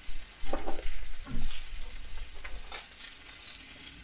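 Food sizzling in a pan on a camp stove, with a few scrapes and clicks of utensils on plate and pan.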